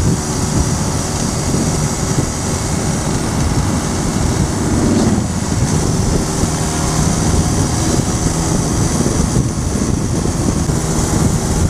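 Cruiser motorcycle engine running at road speed, with heavy wind rush on the helmet-mounted microphone. The engine note changes briefly about five seconds in.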